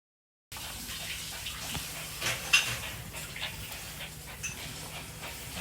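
A pet dog making a handful of short high-pitched whines, the loudest about two and a half seconds in, over a steady low hum.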